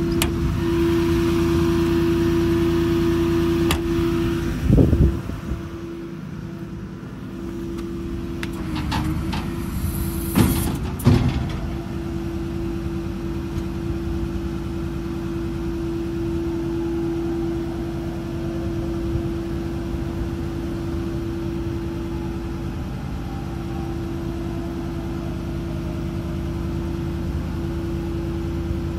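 A diesel truck engine, the tow truck's 6.6 L Duramax, idling steadily under a constant whine. A few loud metal knocks and clanks come about five seconds in and again around ten to eleven seconds in.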